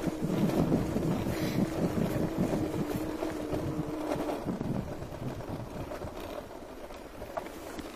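Riding noise from an e-bike on a cobbled street: wind buffeting the microphone and tyre rumble over the cobbles. A steady hum runs under it and fades out a little past halfway.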